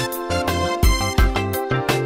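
Music with a steady beat, a drum hitting about three times a second under layered melodic instruments.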